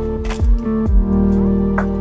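Lofi background music: sustained chords over a deep bass that slides down in pitch twice, about half a second and a second in, with a slow, steady beat.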